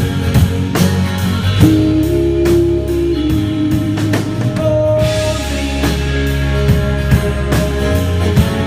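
Band playing an instrumental passage of a rock song: guitar over a steady drum-kit beat, with no singing.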